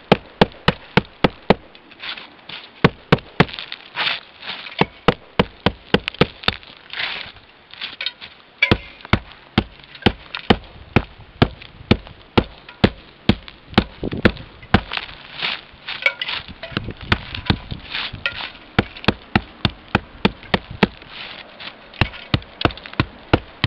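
Hammer chipping away at an ice dam on a roof edge, steady blows about two to three a second with ice cracking and crunching, breaking a path so meltwater can run out over the frozen gutter.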